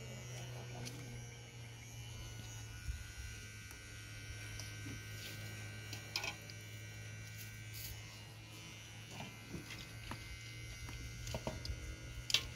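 Electric hair clippers buzzing steadily, with a few scattered light clicks.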